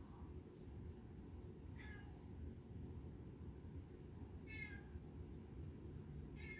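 Three faint, short animal calls, each a brief pitched cry, over a steady low hum.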